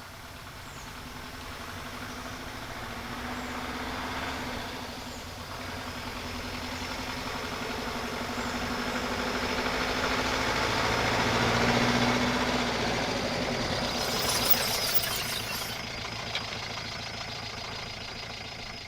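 Hindustan Ambassador car engine running steadily. It grows louder to a peak about twelve seconds in, then eases off.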